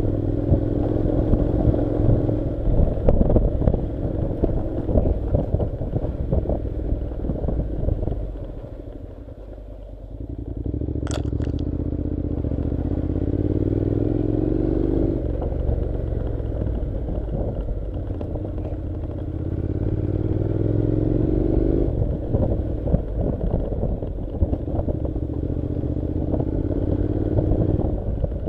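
Honda NC700's 670 cc parallel-twin engine running as the motorcycle rides a gravel track, mixed with steady tyre and gravel noise. The engine drops away briefly as the throttle is closed, then rises in pitch twice as it accelerates. A single sharp click comes about eleven seconds in.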